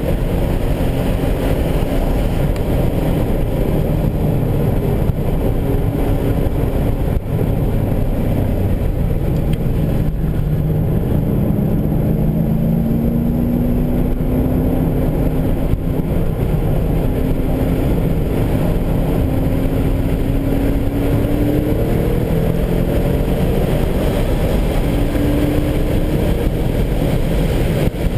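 BMW E39 M5's 4.9-litre S62 V8 engine, heard from inside the cabin while lapping a race track, with road and wind noise under it. The engine note climbs slowly in pitch twice under acceleration, about halfway through and again near the end, with brief dips between.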